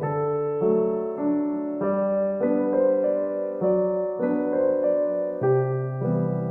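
Background music: a gentle solo piano piece, its notes and chords changing about every half second to second.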